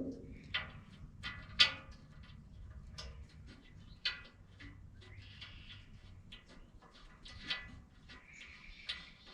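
Irregular light clicks and clanks of metal parts and tools being handled, about a dozen sharp knocks, some with a brief ring.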